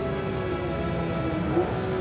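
Porsche 911 GT3 RS's naturally aspirated flat-six at high revs, heard from inside the cabin, with background music. The engine's pitch dips and jumps back up briefly about a second and a half in, a downshift as the car brakes from speed.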